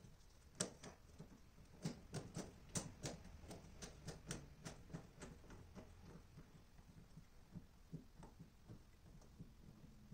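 Scattered light clicks and knocks of a flexible ribbed hose and its fitting being handled and pushed onto a dust collector's port. The clicks are busiest in the first half and grow sparse later.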